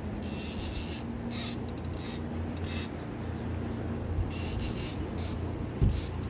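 Boat engine running steadily at idle, a low even hum, with a few short hissy bursts over it while a fish is played on rod and reel.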